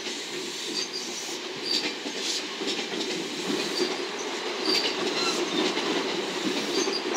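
JR West 227 series electric multiple unit rolling past, wheels rumbling on the rails with irregular clicks over the rail joints and brief faint high wheel squeals, getting louder toward the end.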